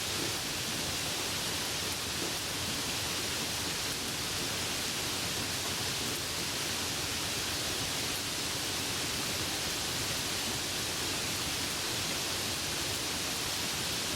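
Steady rain falling: an even, unbroken hiss with no distinct drips or gusts.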